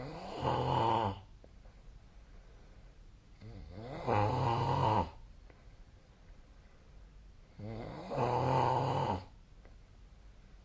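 A sleeping person snoring: three snores, each about a second and a half long, coming about every four seconds.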